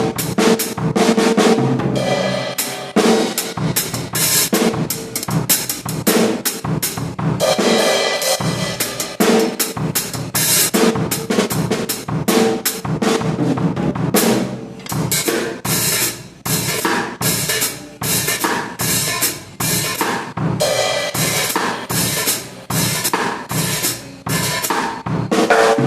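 Drum kit being played: a fast, continuous run of bass drum and snare hits with rolls.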